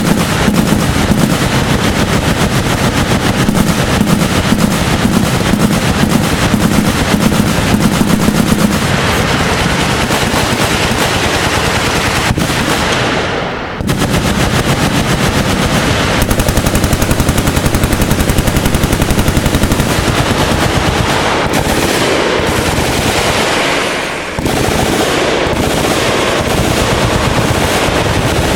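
Machine guns in sustained automatic fire, the shots overlapping with no break. The fire dies down briefly about halfway through and again near the end, then picks back up at full level.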